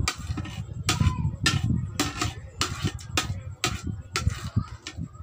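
Close-miked eating of pancit noodles: chewing, with a spoon and fork scraping and clinking on a plate in a string of short strokes about twice a second.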